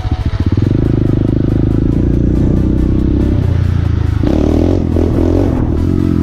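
Motorcycle engine running under way, with music playing along with it.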